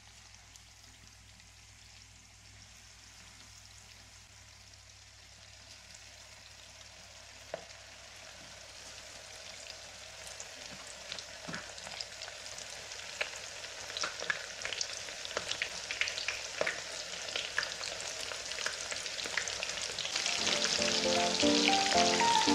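Coated squid rings frying in hot oil: a sizzle that grows steadily louder, with more and more crackles and pops from about a third of the way in.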